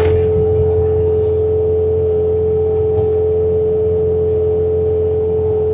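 Bobcat T66 compact track loader's diesel engine at full throttle driving a snowblower attachment through deep snow: a steady low drone under a constant high whine.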